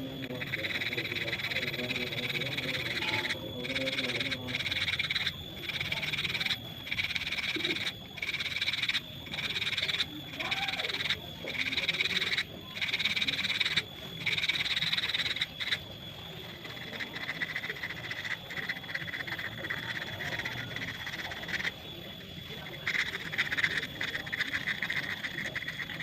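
Stick (electric arc) welding: the arc crackles and sizzles, broken off briefly about once a second in a stitch pattern, then burning more continuously from about two-thirds of the way in.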